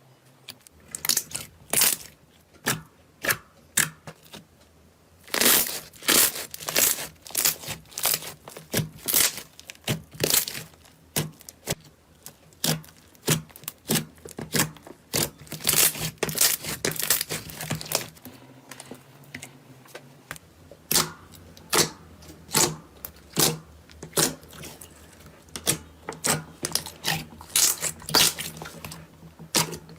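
Slime being pressed and worked by hand, giving off quick runs of sharp crackling and popping snaps, several a second in uneven clusters.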